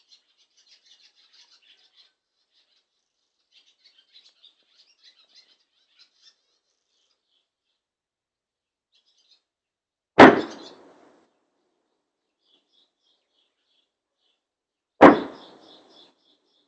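Two loud explosions about five seconds apart, each a sudden crack that dies away over about a second, from shelling. Birds chirp faintly before and after.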